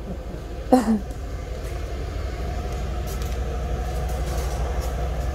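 Steady low machine hum that grows slowly louder, with a brief vocal 'hm' about a second in.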